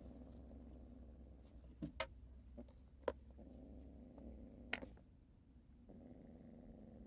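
A cat making a steady, low, rough rumble in its throat while holding a caught mouse, with a few sharp clicks about two, three and nearly five seconds in.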